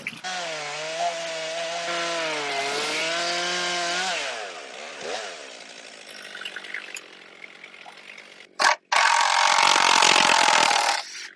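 Stihl MS362 two-stroke chainsaw in an Alaskan mill, running under load as it rips lengthwise through a cherry log, its pitch wavering. About four seconds in the engine note drops away. After a brief break comes a louder two-second burst of sawing noise that cuts off sharply.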